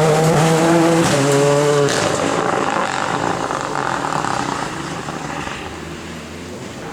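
Renault Clio R3T rally car's turbocharged four-cylinder engine pulling hard close by, its note stepping between rev levels for the first two seconds. It then turns rougher and fades steadily as the car moves away.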